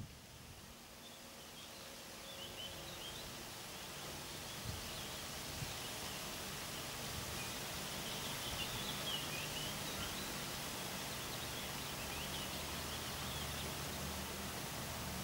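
Outdoor ambience of steady hiss with the low rumble of a distant electric push-pull train slowly growing louder as it approaches. Small birds chirp now and then, most around the middle.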